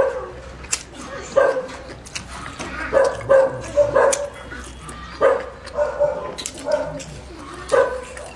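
A dog barking over and over, short barks roughly once a second, with faint clicks between them.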